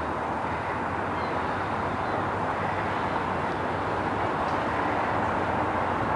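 Steady outdoor background rumble and hiss, like distant traffic, growing slightly louder, with a few faint high calls.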